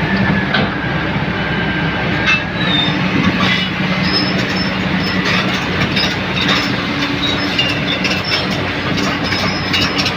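Komatsu PC200 hydraulic excavator at work: its diesel engine runs steadily under load, with short high squeals and scattered metal clanks.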